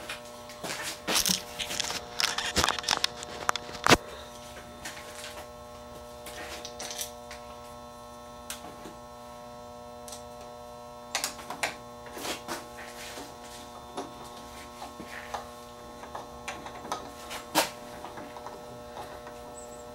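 Scattered clicks and light knocks of metal parts being handled as a reel spindle is fitted onto the Teac A-3340 tape deck's reel table, the sharpest click about four seconds in. A steady electrical hum runs underneath.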